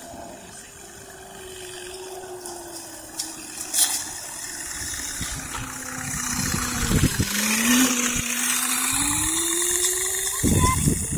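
Motor whine from a child's small electric dirt bike being ridden along a paved path. The pitch drops as the bike slows about seven seconds in, then climbs again as it picks up speed, over a rising rush of noise.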